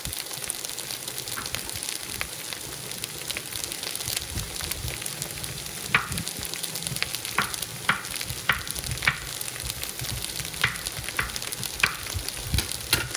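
A spoon stirring vegetables and green lentils in a cooking pot over a steady sizzle, with the spoon clicking and scraping against the pot, more often in the second half.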